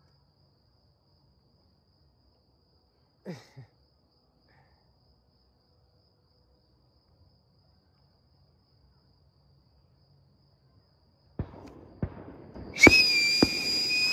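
Fireworks: after a long near-silent stretch, a few sharp pops near the end, then a steady high whistle lasting under two seconds.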